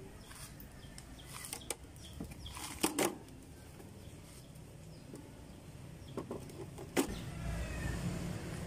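A few sharp knocks, the loudest a close pair about three seconds in and another about seven seconds in, over a faint outdoor background. A low rumble comes in near the end.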